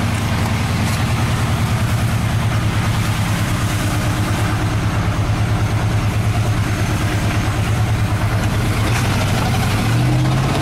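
A 1978 GMC four-wheel-drive pickup's engine running as it drives, heard from inside the cab: a steady throbbing low note. Near the end the engine pitch steps up as it picks up revs.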